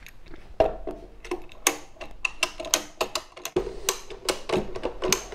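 Hand-held pipe cutter being squeezed through 32 mm polyethylene pipe: a run of sharp, irregular clicks and snaps, several a second.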